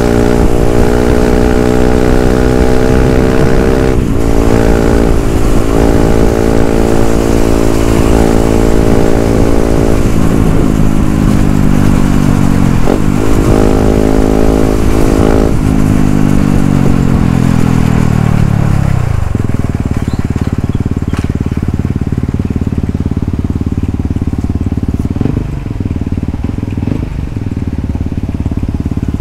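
Yamaha WR155R's single-cylinder engine running under way with a rush of wind noise, its pitch stepping with the gear changes. About sixteen seconds in it falls steadily as the bike slows, then settles into a steady idle once the bike stops.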